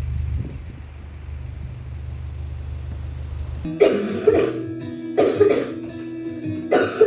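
A person coughing hard in three short fits, each of two hacks, a cough from a cough cold that the uploader labels whooping cough. The coughs start about four seconds in, as background music begins; before them there is only a steady low hum.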